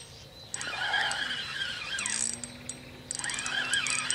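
Spinning reel on a feeder rod being wound in short bursts while a hooked fish is played, its gears whirring with rapid ticking, over birdsong.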